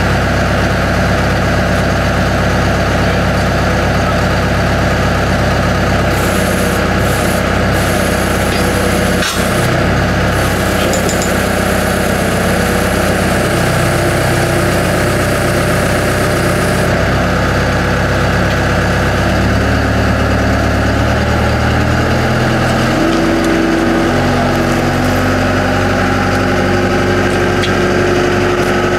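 Heavy engine running steadily while a hydraulic boat trailer is worked under a sailboat hull; its note shifts up and down a few times in the second half, with a hiss over it for a while in the middle.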